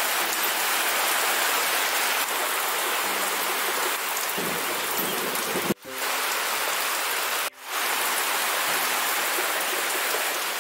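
Heavy rain falling steadily, a dense even hiss. It breaks off briefly twice, about halfway through and a second and a half later.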